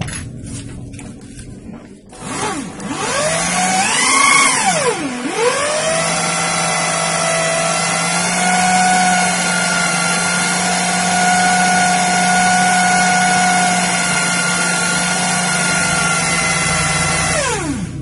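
Electric drill spinning a gun barrel with its muzzle pressed onto coarse sandpaper to crown it. The motor whines up about two seconds in, surges and dips, then runs steadily with a gritty sanding hiss before winding down sharply near the end.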